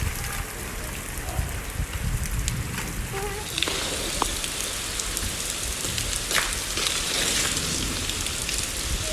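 Rain falling and pattering on surfaces in a steady hiss, growing fuller and brighter about three and a half seconds in.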